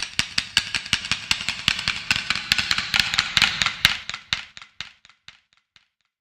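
A fast, even series of sharp clicks or taps, about five a second, fading away to silence about five seconds in.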